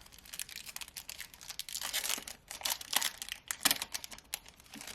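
Wrapper of a Topps trading-card pack being torn open and crinkled by hand: a run of irregular crackles with a few sharper snaps, stopping abruptly near the end.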